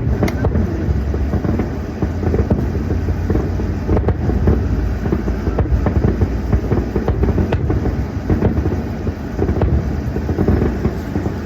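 Distant fireworks popping at irregular intervals, about half a dozen times, over a steady low rumble.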